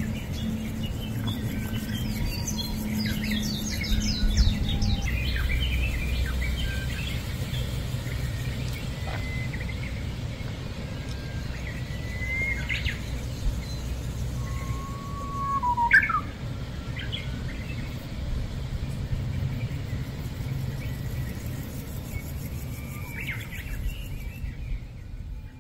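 Small birds chirping and calling now and then, with a quick run of chirps about 4 seconds in and one louder falling call about 16 seconds in, over a steady low hum.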